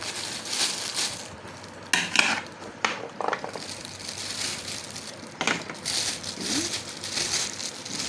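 Whole trimmed okra pods being put into a plastic bag, the bag crinkling and the pods rustling in repeated short bursts.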